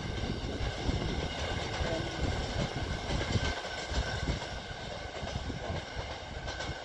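Freight train wagons rolling away along the track: a continuous low rumble of wheels on rail with steady high-pitched ringing tones over it.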